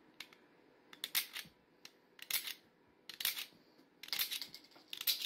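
3D-printed rubber-band-powered disc shooter firing discs: a sharp plastic snap with each shot, about five shots roughly a second apart.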